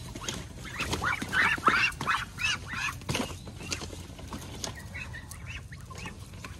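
A pen of Muscovy ducks calling: a quick run of short calls in the first few seconds that thins out and grows fainter in the second half.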